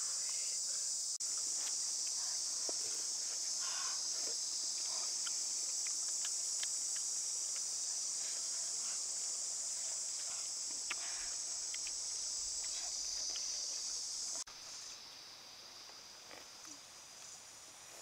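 A steady, high-pitched insect chorus drones throughout and drops abruptly to a fainter level about fourteen seconds in. Small scattered clicks and taps sound beneath it.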